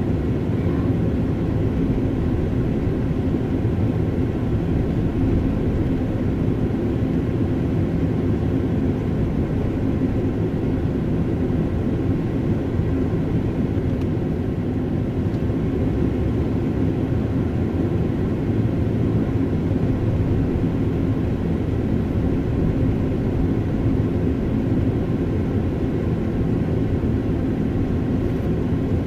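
Steady low hum and rumble of a car's engine and tyres, heard from inside the cabin while driving through city streets.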